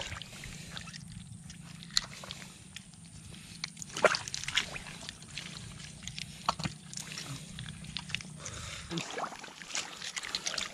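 Faint water sloshing and dripping with scattered light clicks and taps.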